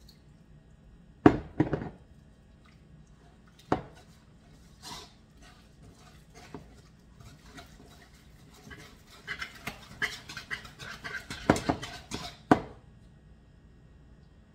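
Wire whisk beating a thin, pancake-like batter in a ceramic mixing bowl, with a few sharp knocks against the bowl in the first four seconds. Then comes a run of quick clicking and scraping whisk strokes from about nine seconds in, ending in two loud knocks.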